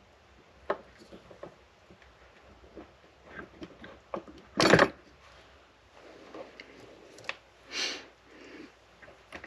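Small clicks and light knocks of hands handling the parts of an O gauge model locomotive on a workbench, with one louder clunk about halfway through and a short scrape near the end.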